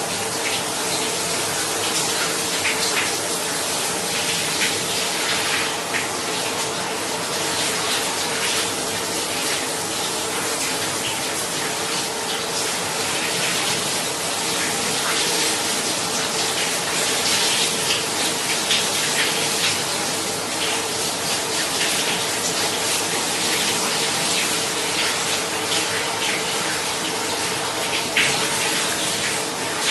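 Shower water running steadily, spray pattering and splashing, with a faint underlying hum from the plumbing.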